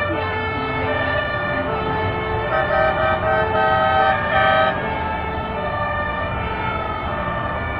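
Several fire engine sirens and two-tone horns sounding together: overlapping steady tones with slow wailing rises and falls, and a horn switching back and forth between two notes in the middle, over the low rumble of passing vehicles.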